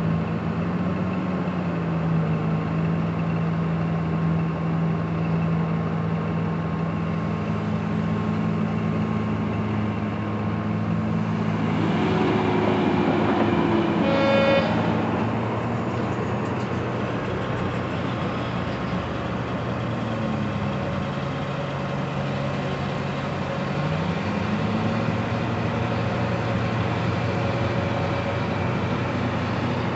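Komatsu PC2000 mining excavator and haul truck diesel engines running with a steady drone whose pitch dips and rises as the engines take load. About twelve seconds in, a louder rumble builds as the bucket loads the truck, followed by one short horn toot about halfway through.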